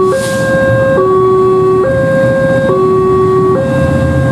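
Electronic two-tone level-crossing alarm alternating steadily between a low and a high note, switching about every 0.85 s. Under it the CC206 diesel locomotive moves off, with its engine hum growing louder about four seconds in and a brief hiss near the start.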